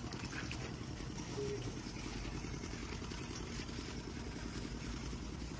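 Rotary drilling rig's diesel engine running steadily with an even, low rumble.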